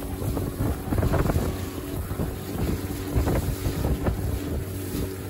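Small inflatable boat's motor running steadily under way, with water slapping and splashing against the hull and wind buffeting the microphone.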